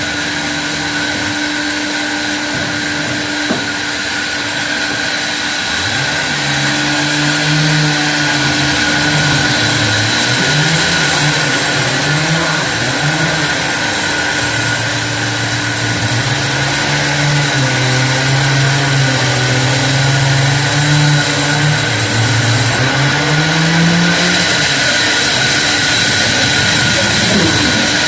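Sawmill machinery running steadily with a constant high whine. From about six seconds in, a motor's pitch wanders up and down, as it does under changing load, until near the end.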